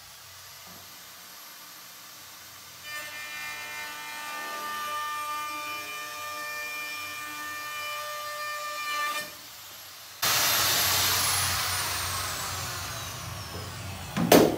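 Handheld trim router, set to about 75% speed, runs with a steady high whine. From about three to nine seconds in, its bearing-guided roundover bit cuts a radius on the edge of an aluminum plate with a ringing whine. About ten seconds in, the sound jumps louder into a rushing noise and the motor whine falls in pitch as it winds down, with a sharp knock near the end.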